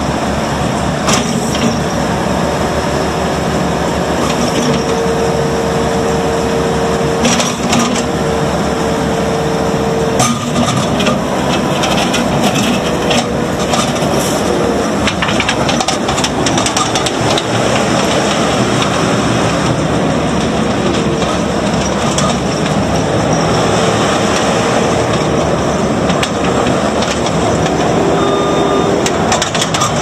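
Case SR220 skid steer loader's 82 hp Case diesel engine running steadily at working revs as the machine drives and moves its bucket, with a whine that comes and goes a few times and occasional sharp knocks.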